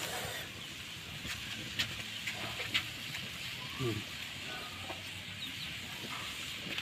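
Quiet background with a few faint voices, one short falling call about four seconds in, and a few soft clicks.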